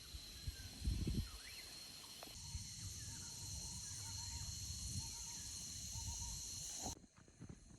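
Outdoor rural ambience: a steady high insect-like buzz with small repeated bird-like chirps and a few soft low knocks. The buzz cuts off abruptly near the end.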